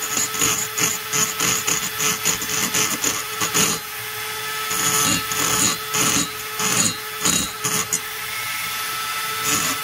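Small handheld rotary grinder running with a steady whine while its bit grinds the transfer port inside an Echo CS-670 two-stroke chainsaw cylinder, in short, irregular scraping strokes as the bit is moved against the metal.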